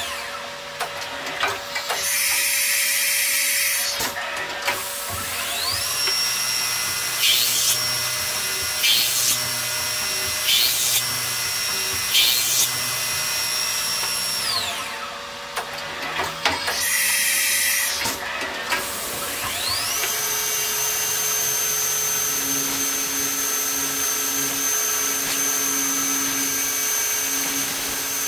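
Fadal CNC vertical mill running a machining cycle on a plastic block, played back sped up. The spindle's high whine winds up and down several times, four short loud bursts come about a second and a half apart as four holes are drilled, and in the later part the whine holds steady while an end mill cuts the pockets.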